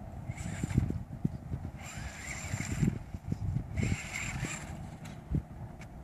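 A 4WD radio-controlled truck's motor whining in three short bursts of throttle, each a second or less, over a low, uneven rumble of thumps.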